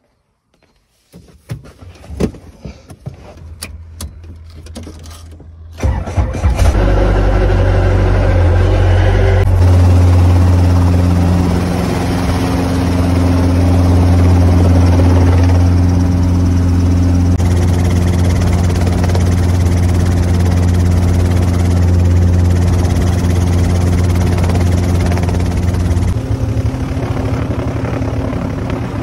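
Robinson R22 helicopter's four-cylinder piston engine: a few clicks and knocks, then the engine starts about six seconds in and runs steadily with the rotor turning, a loud low drone through to a low hover.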